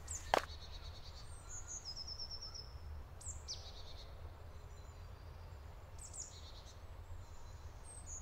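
Forest ambience: small birds chirping and trilling at intervals, including a quick run of descending notes about two seconds in, over a low steady rumble. A single footstep on the gravel track sounds just after the start.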